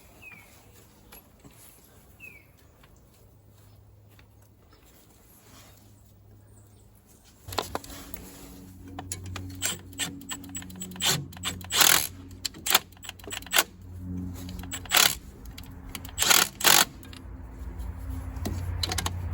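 Metal clinks and clanks of hand tools and bolts while an exhaust manifold is fitted to an old bulldozer engine. They begin after several seconds of near quiet, and a low hum underneath grows louder near the end.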